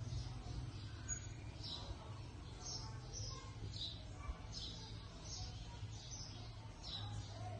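Small bird chirping: short high notes, each falling in pitch, repeated about once or twice a second over a low steady hum.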